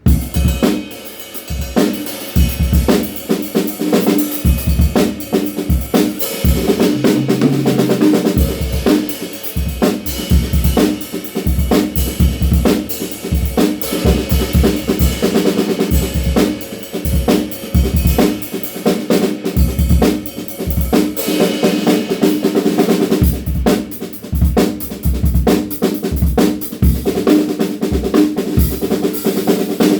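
DW Frequent Flyer drum kit played as a groove with fills: bass drum, snare hits and rimshots, with the drum heads ringing between strokes. The playing starts abruptly right at the beginning.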